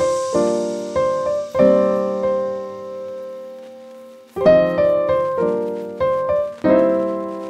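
Background instrumental music: a slow melody of struck notes and chords that ring and fade, with one long fading chord in the middle before the notes resume.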